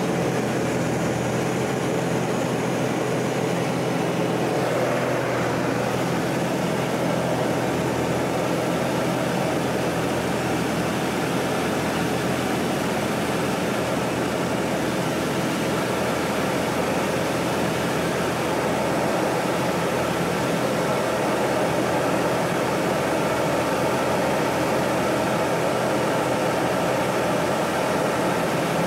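Pitts biplane's piston engine and propeller running steadily in flight, heard from inside the cockpit under a constant rush of air.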